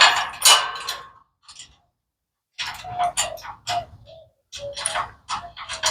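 Light metallic clicks and clinks of bolts, washers and hand tools being handled, some with a brief ring, in two clusters separated by a short pause about two seconds in.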